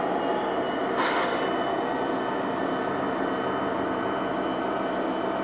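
G scale model freight train rolling by on garden railway track: a steady rumble of metal wheels on the rails, with a short hissing clatter about a second in.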